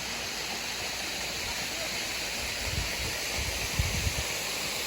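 Steady rush of water from a low-flow waterfall. A few low rumbles about three to four seconds in sound like wind buffeting the microphone.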